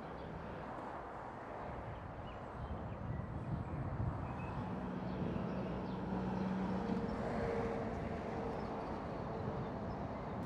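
Outdoor street ambience: a steady rushing noise with a distant engine hum that swells around the middle.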